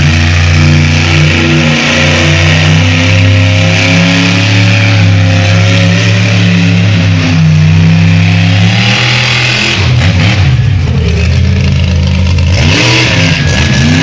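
Monster truck engine running loud and steady, then revving up and down from about ten seconds in.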